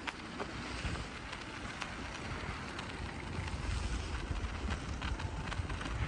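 Wind buffeting the microphone while riding a bicycle on a snowy path, over a steady hum of road traffic, with several short sharp clicks.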